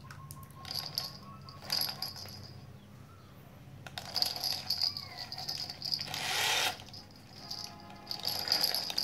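Plastic rattling and clattering from a wheeled plastic toy rolled across a tiled floor, coming in short spells, with one louder rushing burst about six seconds in.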